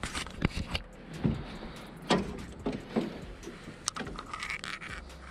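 Irregular knocks and thumps against a small boat's hull and floor while a caught sunfish is handled and laid down.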